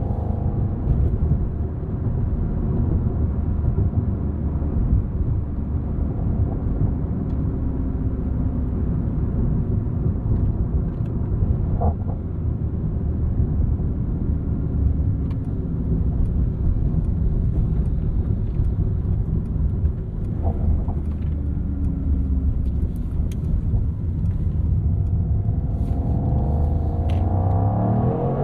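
2024 Mercedes-AMG GT 63's twin-turbo 4.0-litre V8 running while driving, with a low rumble over road noise. Engine speed climbs near the end.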